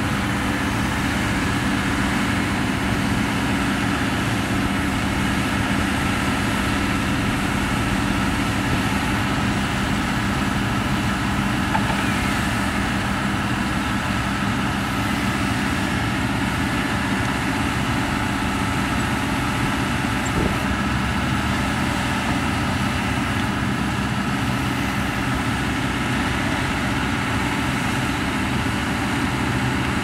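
Heavy diesel engine of earthmoving machinery running steadily at a constant speed, with no revving or breaks.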